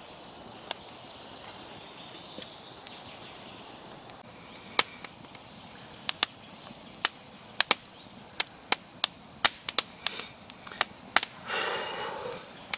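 Campfire crackling: sharp, irregular pops of burning wood, only a couple at first, then about one or two a second from about five seconds in.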